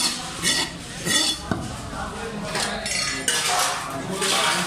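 Steel cleaver chopping and scraping on a wooden chopping block as fish is cut: an irregular run of short scrapes and knocks, with one sharp knock about a second and a half in.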